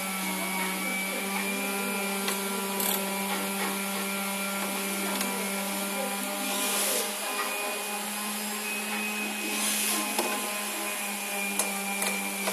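A small electric motor running steadily, a low hum with a high whine over it. Short bursts of hiss come about seven seconds in, about ten seconds in and near the end, and there are a few light clicks.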